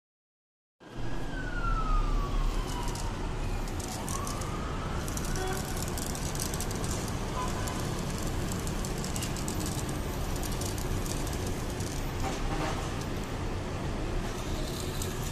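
After about a second of silence, a siren wails, its pitch falling over a few seconds and then rising again, over steady outdoor background noise with a low rumble. A few light clicks come near the end.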